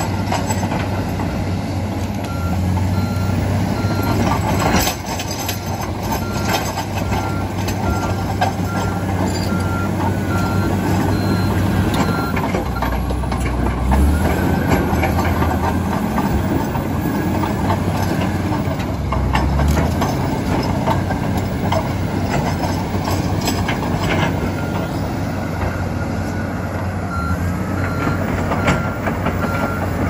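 Komatsu D85EX crawler dozer's diesel engine running steadily as the machine backs up and pushes forward, with its reversing alarm beeping in an even series from about two seconds in until about thirteen, and again near the end. Scattered clanks of steel tracks and rock are heard over the engine.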